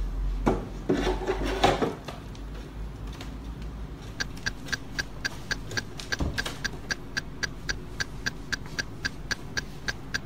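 Shelf boards knocking and rubbing as they are slid into a rack for the first two seconds. About halfway through, a clock-ticking sound effect starts, with even ticks about four a second, marking time passing.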